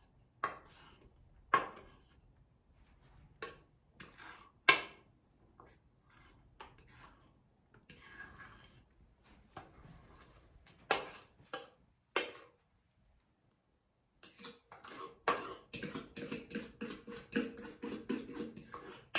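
A utensil scraping and knocking against a stainless steel mixing bowl as thick batter is worked out into a bread pan: scattered clinks and scrapes at first, then a quick, steady run of scraping strokes over the last few seconds.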